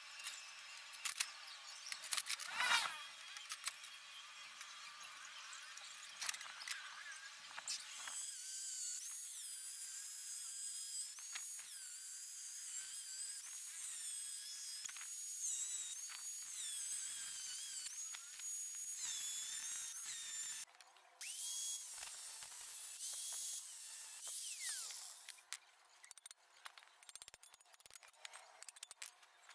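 Angle grinder with a thin cut-off disc cutting through a rusty steel saw blade. It runs with a high whine from about eight seconds in, the pitch dipping and rising as the disc bites into the metal. It pauses briefly about two-thirds of the way through and stops near the end. Before it starts there are a few light knocks and scrapes.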